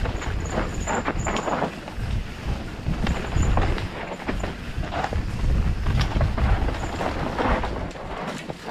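Mountain bike riding down a dry, dusty dirt trail: steady rumble on the microphone with tyres on loose dirt, and the bike rattling with many sharp knocks over bumps.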